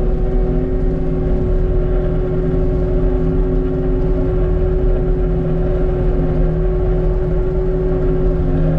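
Cat 289D3 compact track loader running steadily under way, heard inside the cab: diesel engine and drive rumble with a steady whine over it.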